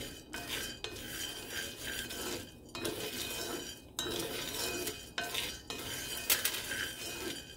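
Dark-roasted coffee beans being stirred around a small cast iron skillet with a utensil, rattling and scraping against the pan in repeated strokes.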